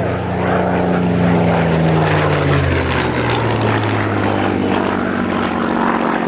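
Spitfire's Rolls-Royce Merlin V12 engine and propeller as the aircraft passes, the engine note dropping in pitch about two seconds in and then running steadily at the lower pitch.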